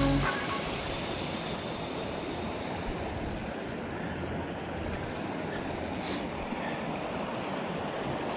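Shallow canyon creek running over rocks and boulders, a steady rushing of water.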